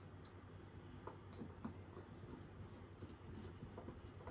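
Faint ticks and small scrapes of a precision hex screwdriver turning a small screw into a plastic extruder housing, over a low steady hum.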